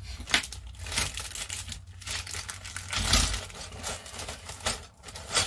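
Plastic kit packaging crinkling and rustling as the model parts are handled, with irregular clicks and sharper rattles and a dull bump about three seconds in.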